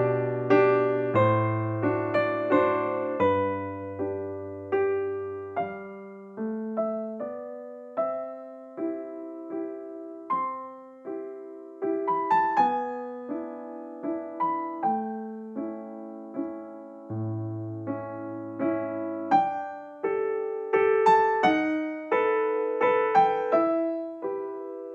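Solo piano background music, a slow gentle melody of single notes over a low bass line.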